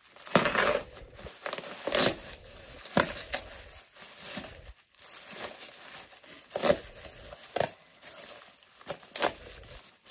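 Plastic bubble-wrap packing bag crinkling and crackling as it is slit with a pocket knife and pulled open by hand. The crackles come in irregular spurts, loudest about a third of a second in and again around two seconds in.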